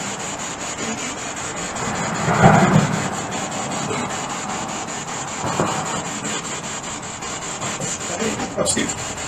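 SB7 spirit box sweeping radio stations, giving a continuous choppy, rasping static, with a louder swell of sound about two and a half seconds in.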